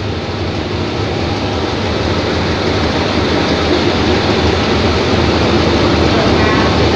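Diesel-electric locomotives of an express passenger train rolling slowly past along the platform as the train pulls in: a steady low engine drone mixed with wheel and rail noise, growing gradually louder as the second locomotive, No. 4514, comes alongside.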